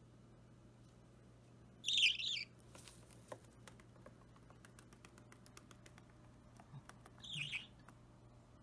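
Budgerigar chick about three weeks old giving two short, raspy begging calls during hand-feeding, one about two seconds in and one near the end. A run of faint small clicks falls between them.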